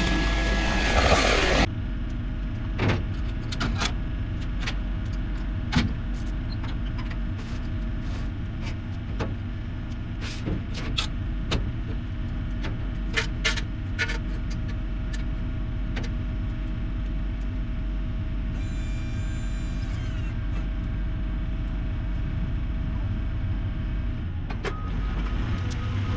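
A vehicle engine running with a steady low rumble, with scattered light clicks and knocks over it. A loud rushing noise at the start cuts off suddenly after a couple of seconds.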